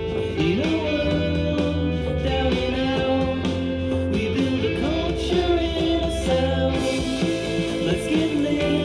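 A rock song with guitar and singing, played through JBL LSR305 studio monitors and picked up in the room.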